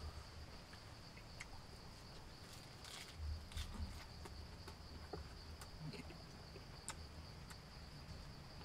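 Crickets chirring steadily, an even high-pitched hum, with a few faint scattered clicks and a brief soft eating noise about three seconds in as snails are picked and eaten.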